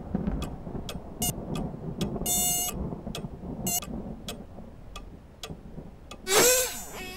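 Cartoon sound effects over a low rumble: light ticks scattered throughout, a short buzzy tone about two seconds in, and near the end a squeaky creature voice whose pitch bends down and back up, the loudest sound.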